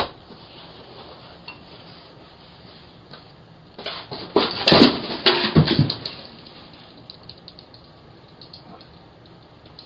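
A burst of clattering knocks starting about four seconds in and lasting about two seconds, over a low steady background, with a few faint ticks afterwards.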